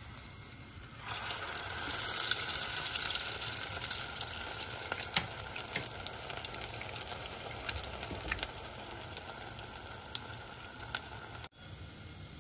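Grated-potato kuku patty frying in hot oil in a pot. A loud sizzle full of crackles starts about a second in as the patty goes into the oil, then slowly dies down; near the end it gives way to a quieter hiss.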